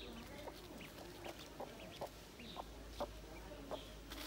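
Mother hen giving short, repeated clucks, about two a second. She is agitated and guarding her ducklings from a person coming close.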